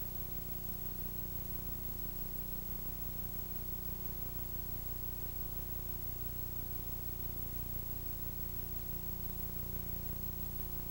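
Steady tape hiss with a low hum underneath, the noise floor of a VHS soundtrack that has lost quality over several copy generations. No other sound stands out.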